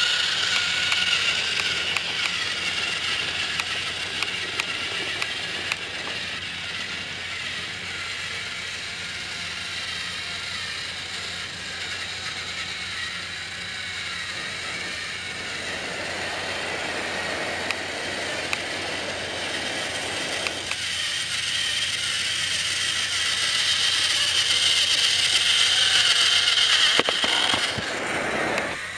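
Battery-powered Trackmaster toy train motors and gearboxes whirring as the engines run along plastic track, with small clicks. The sound is louder when a train passes close, fainter in the middle, and swells again near the end as one goes by.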